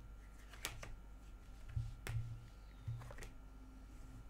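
Tarot cards being handled and shuffled in the hands: a few faint sharp card clicks and some soft low thuds.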